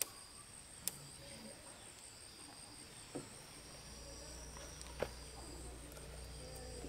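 Faint, steady high-pitched insect chirring, with a few scattered sharp clicks and a low steady hum that comes in about halfway through.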